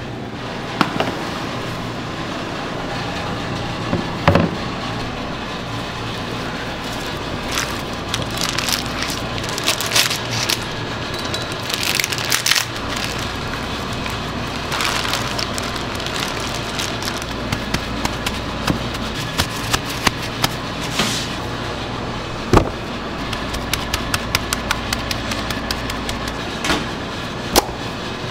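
Raw brisket being handled in a plastic bag: the plastic crinkles and crackles in many small clicks, with a few sharp knocks of metal pans, over a steady background hum.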